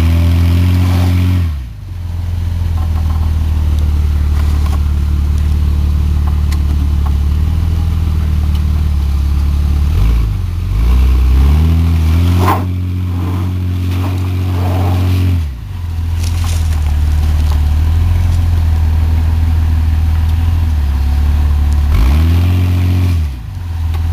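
Jeep Grand Cherokee engine running under load while crawling off-road, revving up three times: near the start, about halfway through and near the end. Each rev falls back to a steadier running note.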